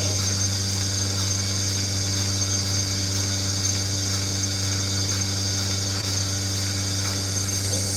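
Milking machine running with a steady, unchanging motor hum and a faint high whine on top.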